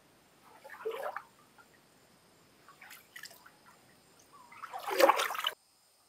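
Water splashing three times, about two seconds apart. The last splash is the loudest and cuts off abruptly.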